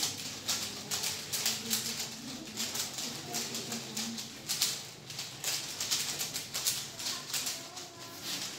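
Several 3x3 Rubik's cubes being twisted fast at the same time: a dense, irregular clatter of plastic clicks and rattles.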